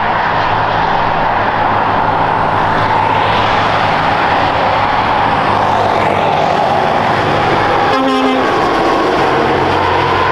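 Heavy truck and trailer driving past on a motorway: steady diesel engine and tyre noise, with a brief horn toot about eight seconds in.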